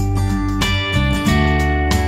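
Background music led by strummed acoustic guitar, with a steady beat and a change of chord about a second in.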